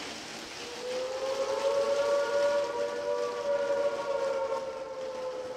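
Steady rain falling, with a long sustained tone that comes in about half a second in, rises a little as it swells, and then slowly sinks.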